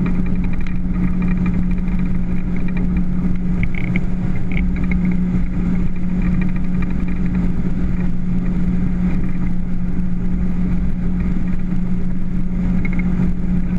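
Motorboat engine running steadily, a constant drone over a low rumble.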